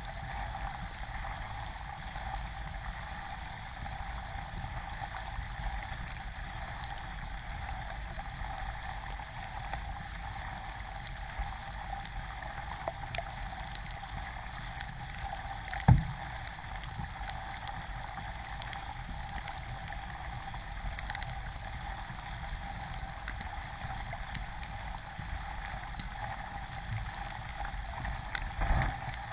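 Steady rush and lapping of river water along the hull of a K1 racing kayak underway, picked up by a camera on the deck at the waterline. There is one sharp knock about halfway through, and a louder burst of splashing over the camera near the end.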